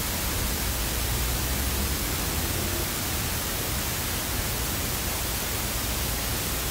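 Steady hiss of background noise with a low hum underneath; no distinct snips of the nail nippers stand out.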